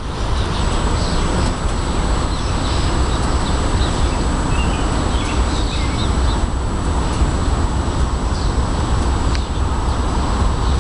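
Steady low rumbling noise outdoors with birds chirping faintly over it.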